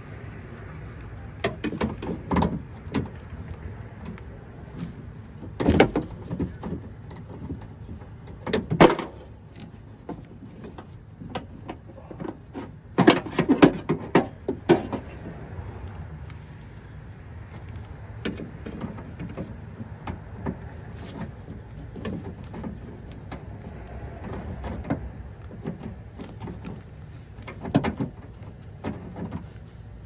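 Irregular metal clicks, clinks and knocks of a socket driver and handle parts inside the hollow steel shell of a Toyota Tacoma front door, as the 10 mm bolts holding the exterior door handle are worked loose. The loudest cluster of knocks comes about thirteen to fifteen seconds in.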